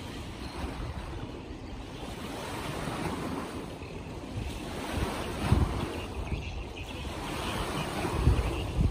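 Wind buffeting the microphone over a steady rush of water, with stronger low gusts a little past halfway and near the end.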